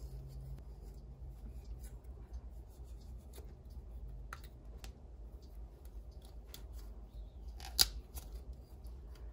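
Small plastic clicks and rubbing as a Barbie doll and its skirt are handled and the skirt is pulled on, with one sharper click about eight seconds in.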